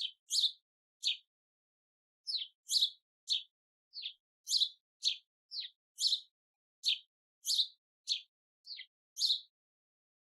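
Sparrow chirping: a series of about seventeen short, sharp, high chirps, unevenly spaced at roughly two a second, with silence between them.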